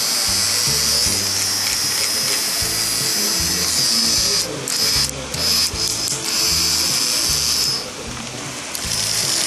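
High-pitched whirr of a Plarail toy train's small electric motor and gearbox running, cutting out briefly a few times in the second half, over background music.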